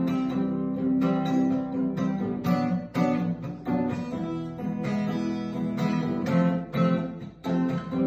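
Acoustic guitar strummed in a steady rhythm, ringing chords with no singing over them.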